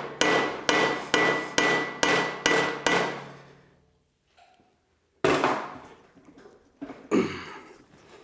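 Hammer blows on a metal band saw part: about eight quick ringing strikes in the first three seconds, then two more after a pause, knocking the part loose.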